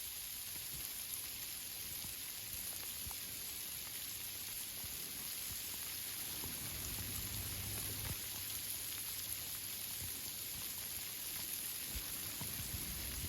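Steady rain falling on tree leaves, a constant patter with scattered single drops ticking.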